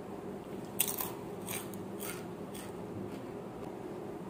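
Crispy fried macaroni papad being bitten and chewed, with short dry crunches about twice a second.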